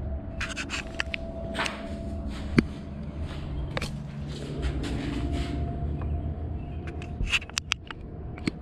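Handling noises of a bolt being worked into a freshly drilled hole through a plastic front splitter and bumper: scattered clicks, taps and rustles, with one sharper click about two and a half seconds in. A steady low hum runs underneath.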